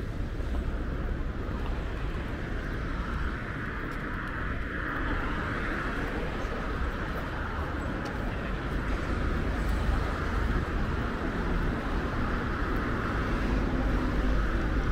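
Street traffic passing on a busy multi-lane city road: a steady rumble of engines and tyres, swelling a little partway through.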